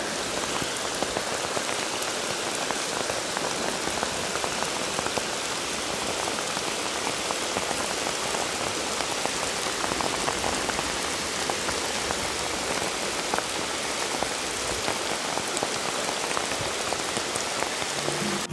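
Heavy rain falling onto the running water of a flooded trail: a steady, dense hiss made of countless small drop ticks.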